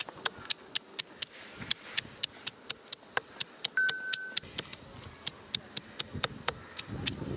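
A rapid, irregular series of sharp clicks or pops, about three to four a second, with a short steady high whistle-like tone about halfway through.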